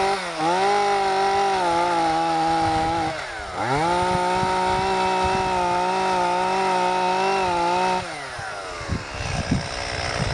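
Two-stroke chainsaw running at high revs, its pitch dipping briefly twice. About eight seconds in the throttle is released and the engine's pitch falls away.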